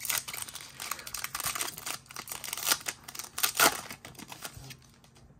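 The wrapper of a 2022 Topps baseball card pack being torn open by hand: dense crinkling and crackling, loudest about three and a half seconds in, then quieter as the cards are slid out.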